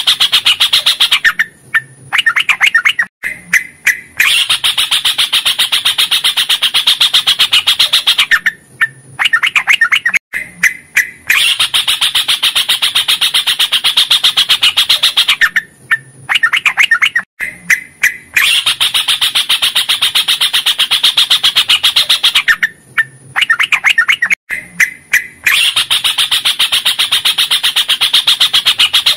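A yellow-vented bulbul (trucukan) singing its long, rapid rolling song. Bouts of fast repeated notes run about five seconds each, separated by short pauses with a few single notes in them.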